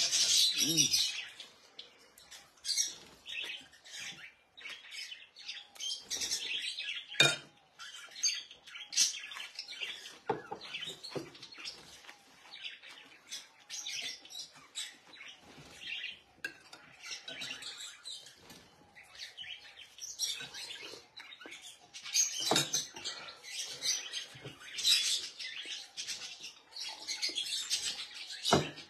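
Caged birds chirping on and off, with a spoon now and then clinking against a bowl as someone eats.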